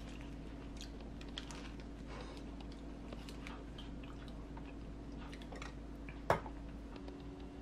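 Paper wrapper of a sandwich crinkling and rustling as it is handled, with scattered small clicks. One sharp knock about six seconds in, the loudest sound, against a faint steady hum.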